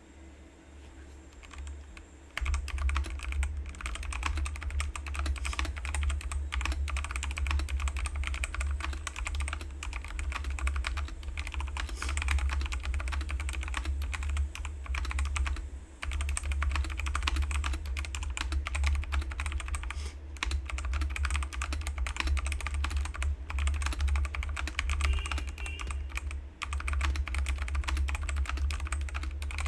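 Fast continuous typing on a Kreo Hive 75% mechanical keyboard with brown switches: a dense clatter of key presses starting about two seconds in, with a few brief pauses.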